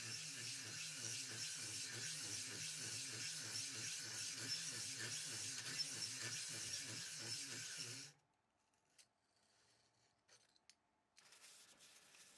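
Electric drill spinning a spring-loaded stone cylinder hone in the oiled bore of a Kawasaki ZX7R inline-four cylinder block. The stones scrape the glazed wall to cut a cross-hatch as the hone is drawn in and out, with a wavering drone from the drill. It stops suddenly about eight seconds in; near the end there is faint rubbing as a rag wipes out the bore.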